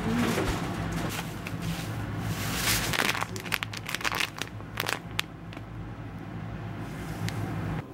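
A plastic seasoning pouch crinkling and crackling in the hand while its contents are poured into a rice cooker's inner pot. There is a run of sharp crackles from about a third of the way in, over a steady low hum.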